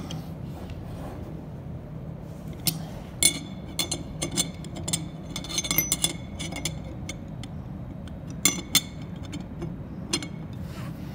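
Steel spanner wrenches clinking and scraping against a CNC router's collet nut and tool holder as the nut is tightened down on the cutter: scattered sharp metallic clicks, thickest through the middle, with two loud ones close together later on, over a steady low hum.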